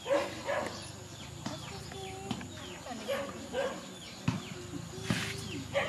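Dogs whining and whimpering in short pitched glides as they beg for food held above them, with birds chirping repeatedly in the background and two sharp clicks about four and five seconds in.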